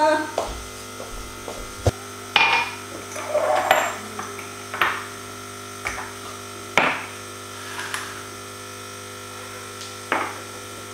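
Kitchen clatter of bottles being put away in a cupboard and things moved about on the countertop: a series of separate knocks and clunks, one a longer scrape, over a steady hum.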